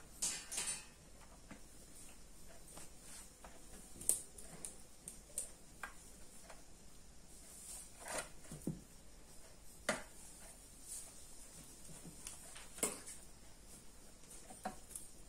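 Scissors snipping and working on thin wires, with small handling clicks: a few sharp clicks spread a couple of seconds apart.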